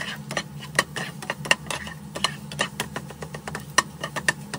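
A spatula tapping and scraping against a wok while scrambled egg is stir-fried, a quick irregular run of sharp clicks, over a steady low hum.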